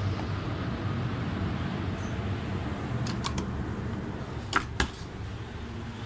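Steady low machinery hum, with a few sharp clicks in the second half: two light ones about three seconds in, then two louder ones close together about four and a half seconds in.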